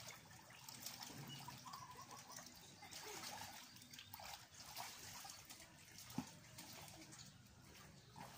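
Faint splashing and trickling of water as children wade in a small backyard paddling pool, with one sharp knock about six seconds in.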